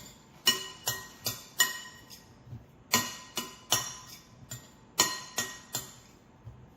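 Background music: a run of short, ringing plucked or bell-like notes at an even pace, with a brief pause near the end.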